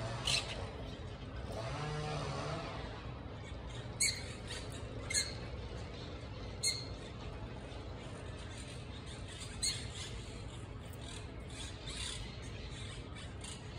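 Short, high chirps, about six of them a second or several apart, over a steady low background hum. A low drone fades out in the first couple of seconds.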